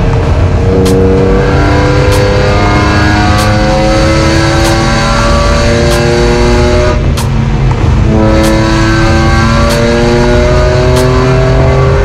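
Car engine heard from inside the stripped cabin, pulling hard with revs climbing steadily, easing off briefly about seven seconds in, then climbing again. A light tick repeats about once a second.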